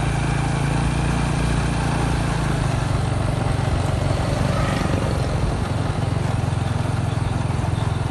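Engine of the vehicle carrying the camera, running steadily as it drives along the street, with a steady rushing hiss; the engine note eases off about halfway through.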